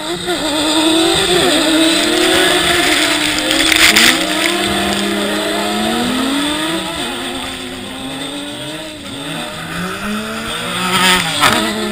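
Several ice-racing cars sliding through a snowy corner, their engines revving up and down and overlapping as they pass one after another. A louder rushing burst comes about four seconds in and another near the end.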